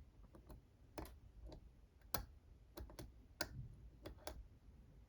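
Hook pick working the pin stacks of an Assa 600 lock under tension: about ten light, irregularly spaced clicks as the barrel spool pins catch on the matched counter milling in the core.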